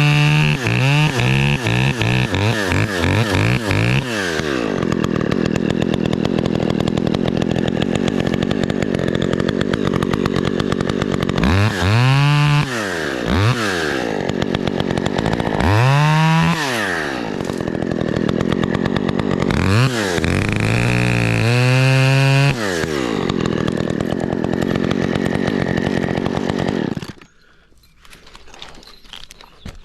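Two-stroke chainsaw revved up and down repeatedly, with long stretches held at high speed between the revs, then shut off suddenly near the end.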